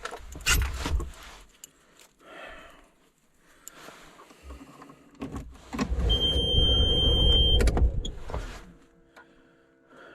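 Knocks and rustling of a vehicle's door and cab being worked, with a steady electronic beep for about a second and a half partway through. A low steady hum follows near the end.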